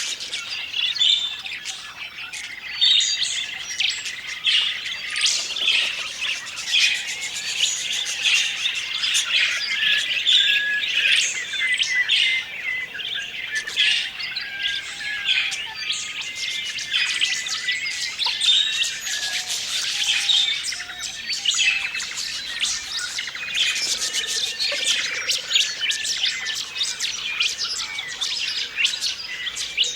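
A flock of budgerigars chirping, warbling and squawking together in a dense, continuous chatter, with many short sharp clicks and calls overlapping.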